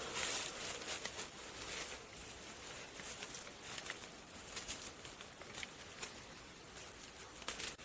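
Dry rustling and scraping with many small sharp clicks, from plant material being worked by hand, with one louder click near the end.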